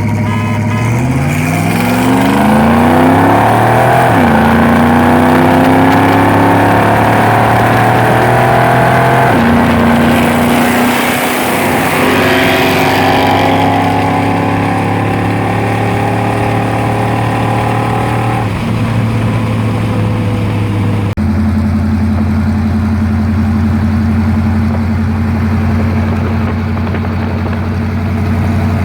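V8 car engine at full throttle, accelerating hard through the gears: its pitch climbs and drops back at shifts about 4 and 9 seconds in and again near 18 seconds. About 21 seconds in it changes abruptly to a steady engine drone.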